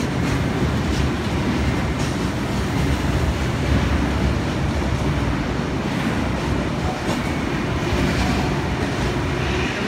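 V-set double-deck intercity electric train running past below, with steady rolling noise and its wheels clicking over the rail joints as it departs.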